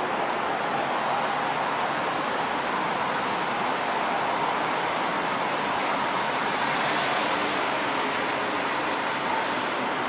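Steady, even background noise with no distinct events, like distant traffic, with thin high-pitched whines above it that drift slightly in pitch in the second half.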